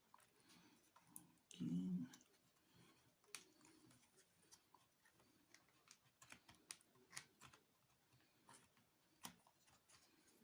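Very quiet, faint scattered clicks and ticks of plastic and metal as a laptop's 2.5-inch hard drive caddy is worked loose from its bay, with one short, louder low knock a little under two seconds in.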